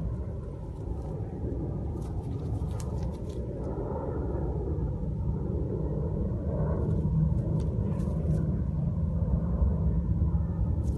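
Steady low outdoor rumble, with a few faint clicks in two short clusters.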